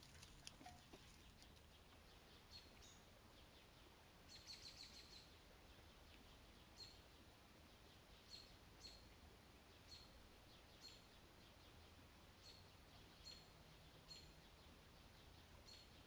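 Near silence: a faint steady hiss with short, high chirps or ticks about once a second, several in quick succession about four seconds in.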